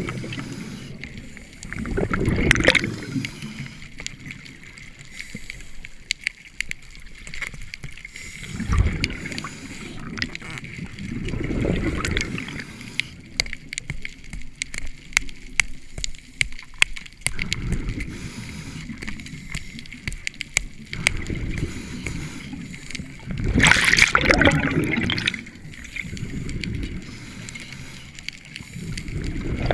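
Scuba regulator breathing heard underwater: exhaled bubbles rumble and gurgle in surges every few seconds, the strongest about three quarters of the way through. A steady crackle of small clicks runs beneath.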